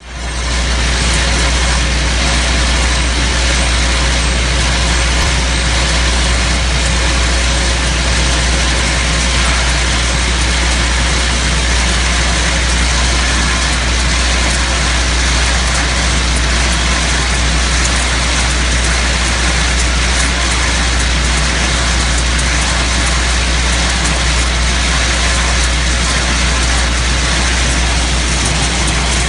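WECO VibeTek optical berry sorter running steadily: a continuous low hum with a dense hiss and a fine rattle over it.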